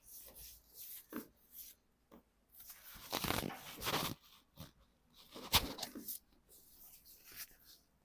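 Rustling and shuffling of a patient's body and clothing on a chiropractic treatment table during hands-on treatment, with one sharp knock about five and a half seconds in.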